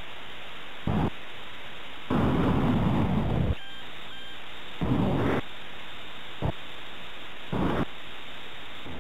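Steady VHS tape hiss broken by several short bursts of rough, rumbling noise, the longest lasting about a second and a half, with two brief faint beeps about halfway through.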